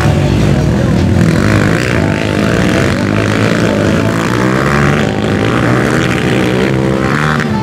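Several motocross dirt bike engines running together, revving up and down as the riders work through the turns.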